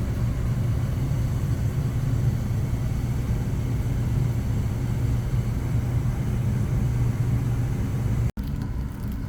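Gas furnace running steadily after ignition, a low hum with an even rush of air, staying on now that the flame sensor has been cleaned. It cuts out for an instant about eight seconds in and carries on a little quieter.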